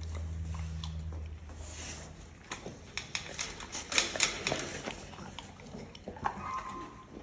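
Shelter dogs snapping up and chewing chicken nuggets taken from a hand through kennel bars: a quick run of clicks and wet smacks about two and a half to five seconds in. A low steady hum fills the first two seconds.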